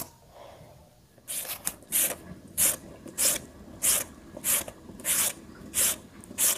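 Raw potato rubbed against a hand grater and shredded into thin strips, in regular rasping strokes about every two-thirds of a second, starting about a second in.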